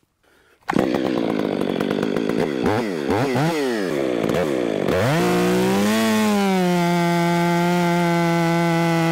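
Big two-stroke Stihl MS 660 clone chainsaw on a 36-inch bar. After a brief quiet it revs up and down in quick blips. About five seconds in it goes to full throttle, climbs in pitch and then holds a steady high-revving note in the cut.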